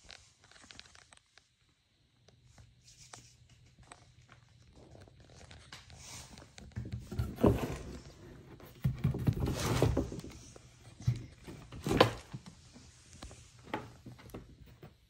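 Cardboard rustling and scraping as a cat moves against and climbs into a cardboard box, starting quiet and growing busier, with a few louder scrapes in the second half.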